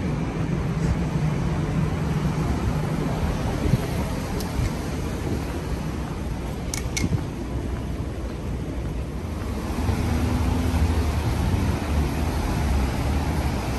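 City street traffic: a steady hum of cars driving on wet pavement, swelling for a few seconds near the end as a vehicle passes close by. Two brief high ticks about halfway through.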